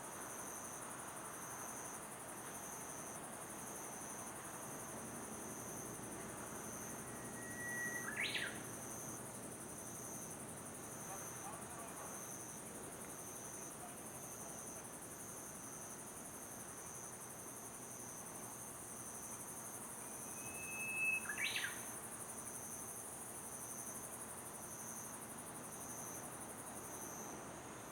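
Insects trilling steadily, with a regular pulsing chirp. A bird calls twice, about 8 and 21 seconds in, each time a short level whistle ending in a sharp note.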